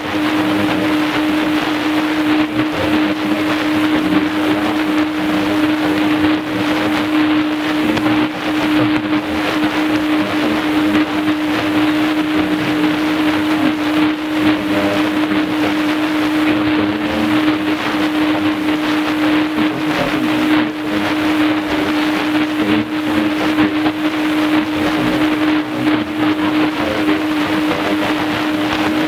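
Weak shortwave AM signal on a Tecsun PL-310ET portable receiver's speaker: a steady wash of static hiss with a constant low whistle underneath, the station's programme buried in the noise.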